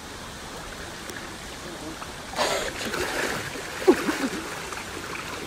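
Shallow creek water running over rock, then about two and a half seconds in a loud splash as a person slips on the wet rock and falls into the water, followed by short cries.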